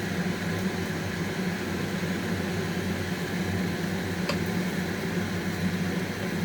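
Steady low hum with a hiss over it in a kitchen, as French toast fries in butter in a pan on the stove; a faint click about four seconds in.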